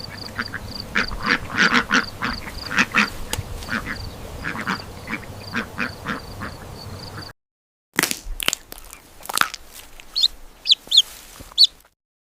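Ducks quacking in a rapid series of short calls. The calls cut off briefly about seven seconds in, then resume with a few higher chirps among them, and stop suddenly near the end.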